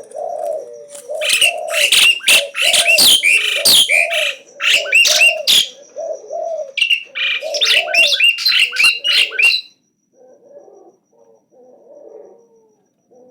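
Asian pied starling (jalak uren) singing loudly: a rapid run of harsh chattering notes and short upswept whistles that stops abruptly about ten seconds in. Low repeated cooing notes continue underneath throughout.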